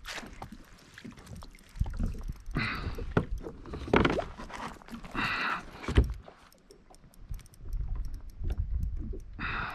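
Handling noise aboard a plastic sit-on-top kayak as a landing net and fishing rod are moved about: several sharp knocks of gear against the hull, the loudest about four seconds in, with water sloshing and rustling between them.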